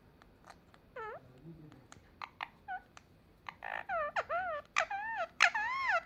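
Rose-ringed (Indian ringneck) parakeet making short warbling calls that bend up and down in pitch. They come scattered at first, then closer together and louder from about four seconds in, with sharp clicks in between.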